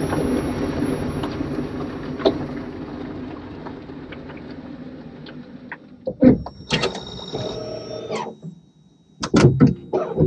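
Hyundai IONIQ Electric recorded from a mic in its engine bay: a low running rumble fades over several seconds under a faint, thin high-pitched whine from the electric motor. In the last few seconds a series of short, loud, sharp sounds follows.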